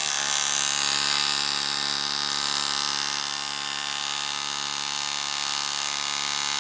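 Makita cordless impact driver running steadily under load, its rapid hammering action driving a fastener into a timber block.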